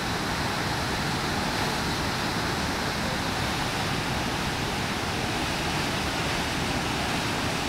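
Davis Falls (Patale Chhango), a large waterfall plunging into a narrow rock gorge, rushing with a steady, unbroken noise.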